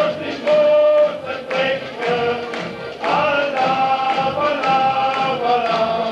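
Music with singing over a steady beat of about two strokes a second, with long held sung notes.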